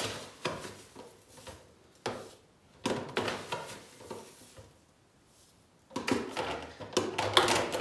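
Plastic food processor bowl and lid being handled: scattered clicks and knocks with brief rustles, a busier run of clatter near the end.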